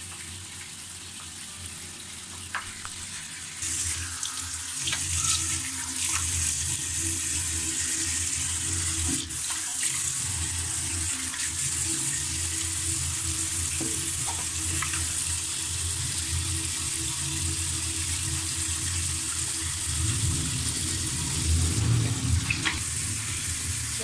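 Tap water running into a bathroom sink, switched on about four seconds in and then running steadily, with a few light knocks from hands or objects at the basin.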